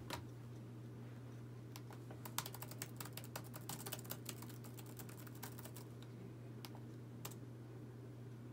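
Typing on a laptop keyboard: a quick run of keystrokes through the middle, then a few single taps near the end, faint over a steady low hum.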